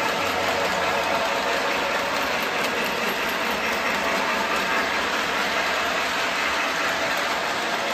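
O-gauge model steam locomotive and cars running on three-rail metal track: a steady rolling rumble of wheels on the rails with the locomotive's motor.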